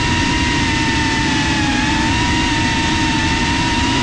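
GEPRC CineLog 35 cinewhoop's electric motors and ducted propellers whining steadily in flight, heard from the drone's onboard GoPro. The pitch sags slightly about two seconds in, then comes back up as the throttle changes.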